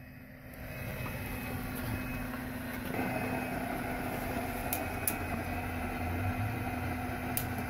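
Briggs & Stratton lawnmower engine running steadily on wood gas fed straight into its carburetor, with an empty fuel tank, a low steady hum. A few light clicks sound in the second half.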